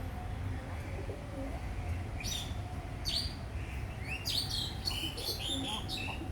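Pet birds chirping: two single calls, then a quick run of several chirps near the end, over a steady low rumble.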